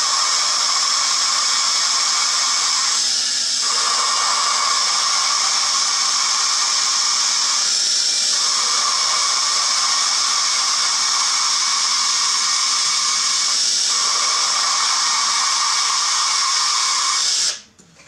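Cordless drill spinning a suction-cup valve-lapping tool, grinding an intake valve against its seat with lapping compound: a steady whirring grind. Its higher tone drops out briefly three times. It stops near the end. The change in the grinding's tone is what tells when the valve and seat are lapped to a match.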